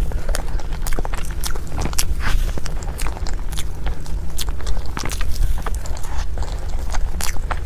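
Close-miked eating: a person chewing big mouthfuls of food, a dense, irregular run of sharp wet clicks and crunches, over a steady low hum.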